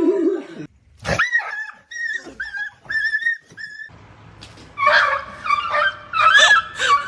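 A dog whining and whimpering: a string of short, high-pitched whines, then louder, wavering cries from about five seconds in.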